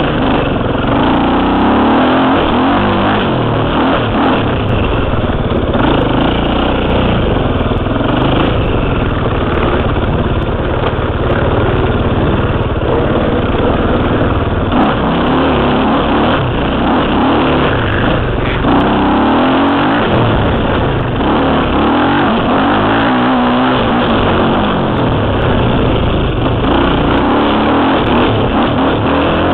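KTM 300 two-stroke dirt bike engine, heard close up through a helmet-mounted camera, revving up and down continuously as the bike is ridden.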